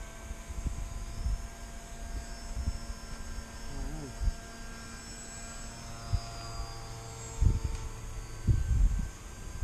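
Brushless electric motor and propeller of an RC model plane heard in flight, a steady whine of several tones that slide in pitch as the throttle and distance change. Wind buffets the microphone in low gusts, strongest about seven and a half and nine seconds in.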